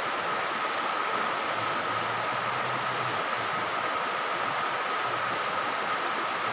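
Steady hiss with a faint, constant high whine running through it; no distinct knocks or chalk taps stand out.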